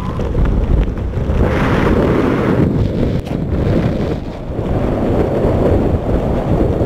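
Loud wind rushing and buffeting over the camera microphone under an open tandem parachute canopy as it swings into a steep turn, growing louder right at the start and staying rough and heavy.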